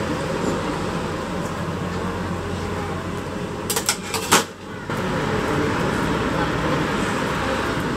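Steady street background noise with indistinct voices, broken about four seconds in by a few sharp clicks and a brief dip in level.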